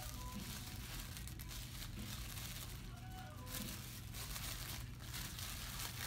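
Crinkling and rustling of a thin green plastic bag being crumpled and worked in the hands, irregular crackles over a steady low hum.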